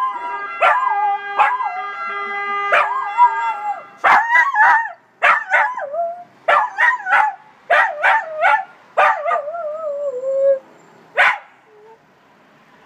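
Small dog howling and yipping: wavering howls broken by sharp yips, with a long howl falling in pitch near the end and one last yip. A steady pitched tone with many overtones sounds underneath for about the first four seconds, then stops.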